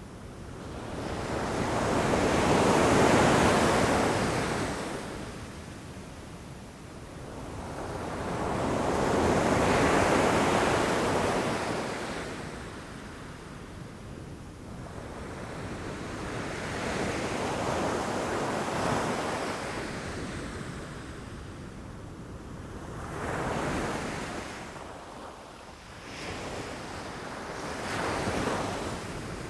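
Ocean waves surging onto rocky shore, each one swelling into a rush of surf and draining away. Two big waves come about seven seconds apart, followed by a longer, lower wash and two shorter, smaller surges near the end.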